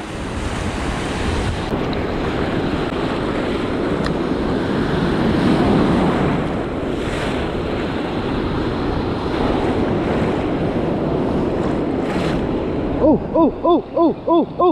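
Ocean surf breaking and washing through the shallows, with wind on the microphone. Near the end a spinning reel is cranked, its gears whining in a pitch that rises and falls with each turn of the handle, about three turns a second.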